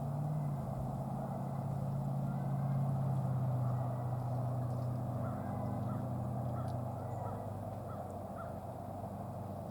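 American crows giving a row of about seven short, soft calls in the second half, over a steady low engine hum.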